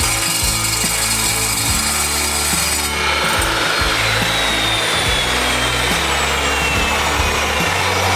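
Power saw running and cutting through metal: a continuous grinding hiss, with a thin whine that slowly drops in pitch over the second half. The blade is worn and sparking, and needs replacing. Low background music notes underneath.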